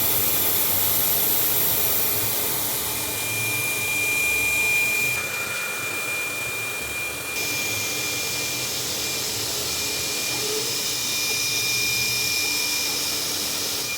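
CNC milling machine running a cut on the part, a steady noisy whir from the spindle and end mill. A steady high whine comes in about three seconds in, and the sound shifts about five and again about seven seconds in as the cut changes.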